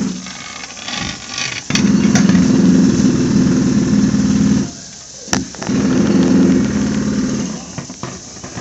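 Engine of heavy construction machinery running hard, dropping away twice and picking up again, with a few sharp clanks.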